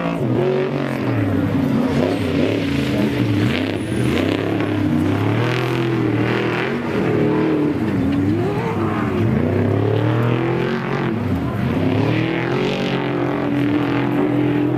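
Engines of off-road race trucks and Class 1 buggies running hard. Several engines overlap, their pitches rising and falling as they rev and back off, with no break.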